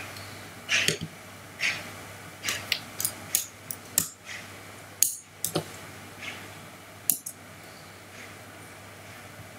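Irregular clicking and tapping of a computer keyboard and mouse, about a dozen short clicks unevenly spaced, over a faint steady low hum.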